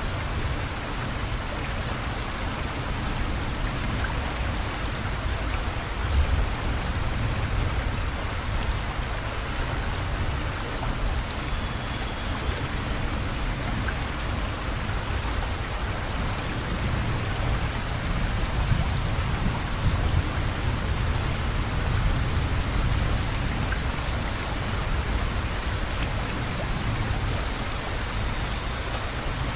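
Steady rain falling, a dense even hiss of drops, with a low rumble underneath that swells a few times.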